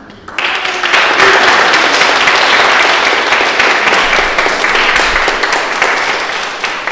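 Audience applauding: many people clapping together, starting suddenly about half a second in and going on steadily.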